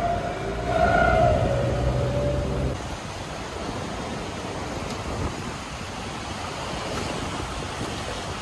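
A Nissan NP300 pickup's engine running as it drives on sand, with a brief higher tone about a second in. After about three seconds the engine sound stops and a steady rushing noise of wind and surf takes over.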